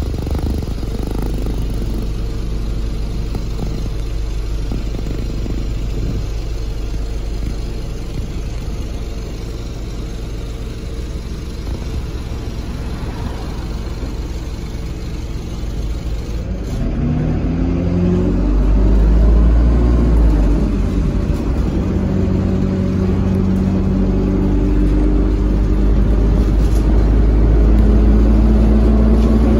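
Dennis Dart SLF bus's diesel engine heard from inside the saloon: a steady idling rumble, then a little past halfway the bus pulls away and the engine note rises in steps and grows louder as it accelerates.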